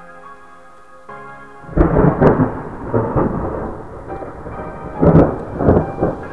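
Thunder from a monsoon thunderstorm, rumbling in several loud rolls with sharp cracks, starting about two seconds in, over background music with held notes.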